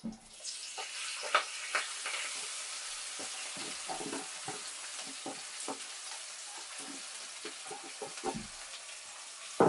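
Chopped peppers and onion hitting hot oil in a Jamaican Dutch pot and frying: a steady sizzle that starts just after the beginning, scattered with pops and crackles and easing slightly toward the end. The sizzle shows that the oil is hot enough.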